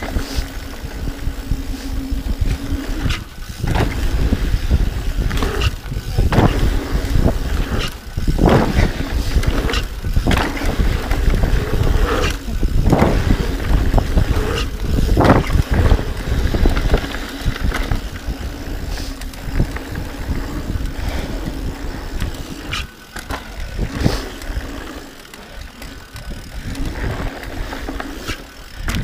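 Mountain bike descending a dirt trail: wind buffeting the camera microphone and tyres rolling over packed dirt and leaves, with frequent knocks and rattles as the bike hits bumps. A steady low buzz comes and goes, and things ease off for a few seconds near the end.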